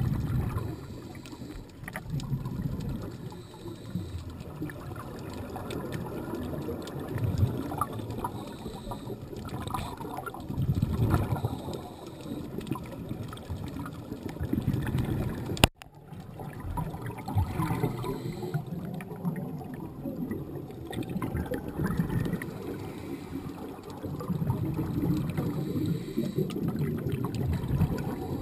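Muffled underwater sound through a camera housing: scuba exhaust bubbles gurgling up in surges every few seconds. A sharp click about halfway through, after which the sound briefly drops away.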